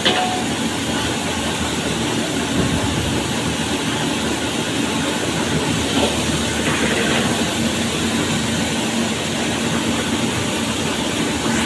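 Motor-driven flour mill machinery running with a steady, even din and a low hum.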